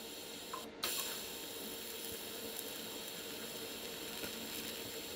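Lift-start TIG welding arc at low current (about 35 A) on 0.8 mm car-body sheet steel: a faint, steady sizzling hiss with a light hum.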